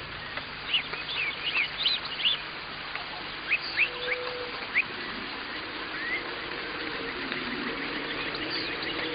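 Birds singing outdoors: a scatter of short, high chirps and whistles over a steady background hiss, thickest in the first half. Near the end a low hum rises beneath them.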